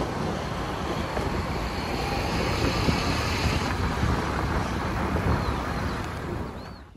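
Wind buffeting the microphone over a steady rushing noise, with uneven low rumbles, fading out near the end.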